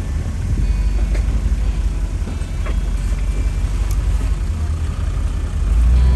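Low, steady engine rumble of a 4x4 crawling slowly over a rocky step, with a few sharp clicks from stones under the tyres. Music comes in near the end.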